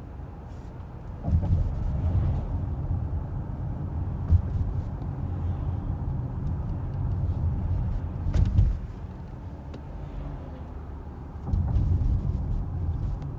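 Cabin sound of a 2020 VW Touareg accelerating: a low engine and road rumble swells about a second in, eases off after about eight seconds, then builds again near the end.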